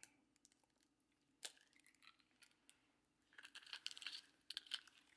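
An egg being cracked and its shell pulled apart by hand: one faint tap about a second and a half in, then a cluster of faint crackles and clicks near the end.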